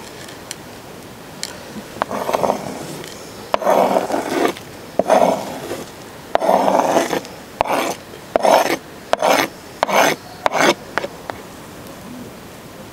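A metal spoon and knife scraping chopped parsley and garlic across a wooden cutting board into a clay bowl. The scraping comes as about nine short strokes, starting about two seconds in and coming quicker toward the end.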